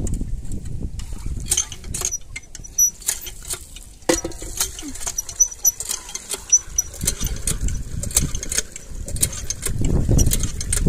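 Hand pump being worked by its lever handle: repeated clicks and clanks with short high squeaks from the handle, and water splashing into a steel pot, the rushing growing louder in the last few seconds.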